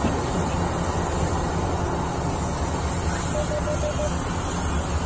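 Caterpillar 6015B hydraulic mining excavator's diesel engine running steadily under load as it dumps into and swings away from a haul truck. A short run of about five faint beeps a little past the middle.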